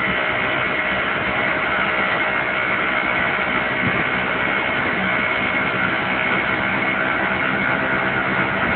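Auto rickshaw's small engine running steadily as it drives along, with road and traffic noise, heard from inside its open cabin.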